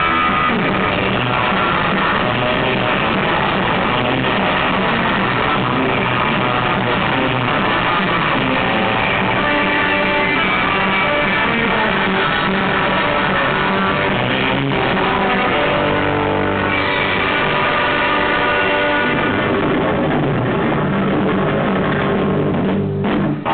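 Live surf rock band playing, led by a Fender Stratocaster electric guitar over a drum kit, with a brief break just before the end.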